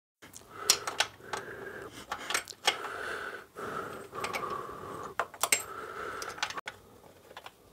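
Socket ratchet clicking in repeated strokes, each run lasting about a second, with sharp knocks between them, as a bolt is undone to remove the alternator.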